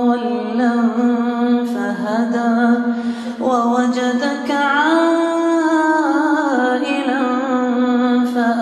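A man reciting the Quran in slow, melodic murottal style, drawing out long held notes with ornamented turns. The voice rises to a higher held note about halfway through, then settles back down.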